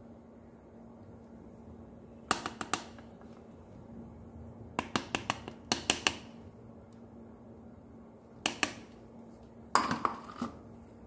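Metal mesh sieve knocking and clinking against a ceramic bowl while flour is sifted: four short clusters of quick clinks, the loudest near the end.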